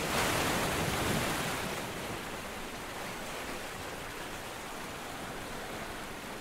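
A steady rushing noise that swells within the first second and then holds level.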